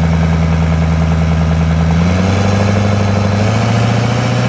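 Diesel truck engine idling steadily. Its speed steps up a little about two seconds in, then holds.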